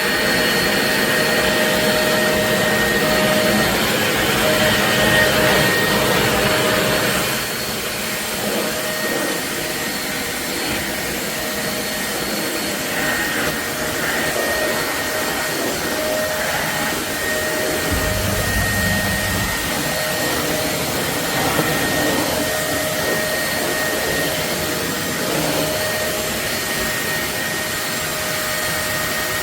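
Corded stick vacuum cleaner running steadily: airflow noise with a constant motor whine over it. It drops a little in level about seven seconds in, and there is a brief low rumble a little past the middle.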